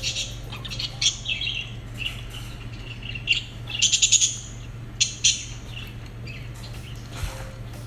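Lovebirds chirping in short, high calls, with a quick run of rapid chirps about four seconds in.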